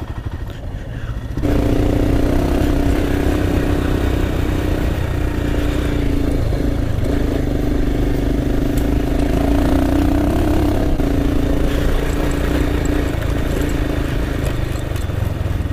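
Royal Enfield Himalayan's single-cylinder engine pulling steadily under way on an off-road ride, heard from the rider's helmet. The engine gets suddenly louder about a second and a half in, then holds a steady note with small rises and dips.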